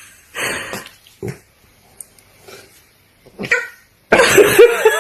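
A dog making several short, rough vocal sounds, with the loudest and longest near the end.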